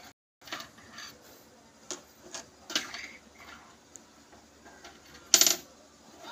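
Light taps and clinks of small hard objects being handled on a wooden box top, with one louder, brief clatter about five seconds in.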